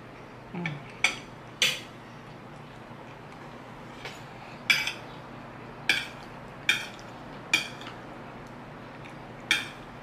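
Metal spoon clinking and scraping against a plate while scooping up macaroni with meat sauce: about seven sharp clinks at irregular intervals.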